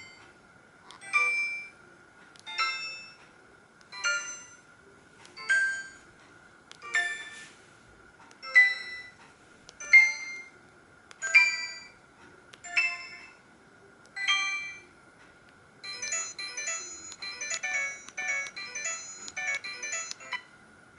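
Samsung SGH-E900 mobile phone ringtone: a bright bell-like note repeating about every second and a half, then, about 16 s in, a faster run of quick notes.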